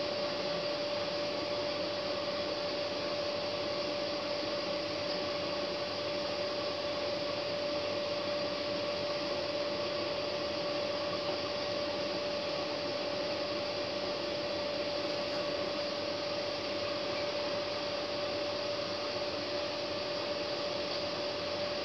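Hotpoint front-loading washing machine tumbling a load of laundry in its first rinse: a steady motor hum and drum noise with a constant whine running through it.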